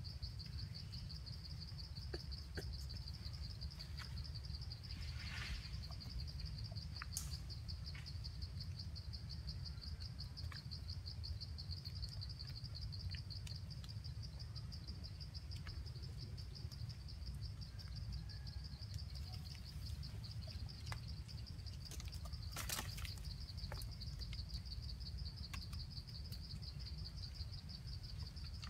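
A steady, high-pitched insect trill with a rapid pulse runs over a low rumble, with brief rustles about five seconds in and again near the end.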